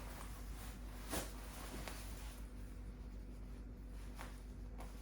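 Soft rustling of clothing as a gilet is pulled on, with a few faint brushing strokes over low room noise.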